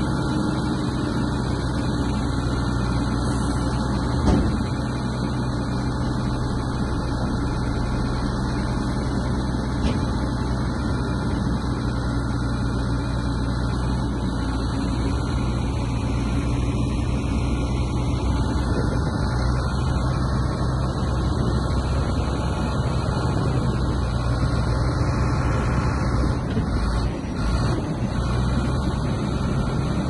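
Heavy diesel engine of earthmoving machinery running steadily, with a single knock about four seconds in.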